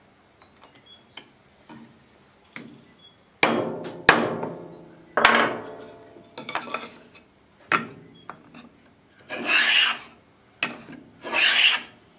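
HNT Gordon wooden block plane pushed across timber in a series of rasping strokes, starting about three seconds in after a few light ticks. The first strokes start sharply and die away; the last two, near the end, are longer even rasps.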